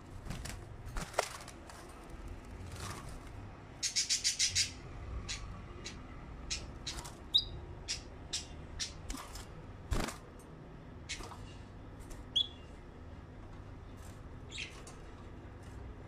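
Canaries moving about a wire cage: scattered wing flaps and sharp clicks of the birds landing on the bars. A quick run of about six high ticks comes about four seconds in, and there are two short high chirps.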